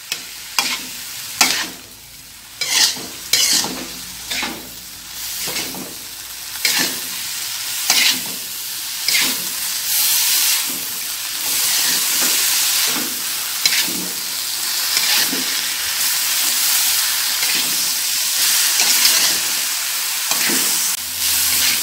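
Cassava leaves being stir-fried in a wok: a metal spatula scrapes and knocks against the pan about once a second over a steady sizzle. The sizzle grows louder about halfway through.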